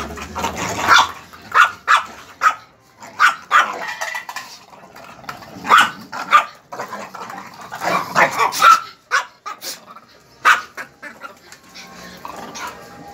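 A five-month-old pit bull puppy and a black dog play-fighting, giving a run of short, sharp barks and yips at irregular intervals that thin out near the end.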